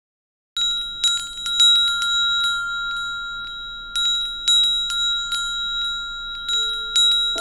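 Cluster of small brass prayer bells rung by hand, starting about half a second in: repeated clanging strikes over a steady high ringing that carries on between them. A lower ringing tone joins near the end.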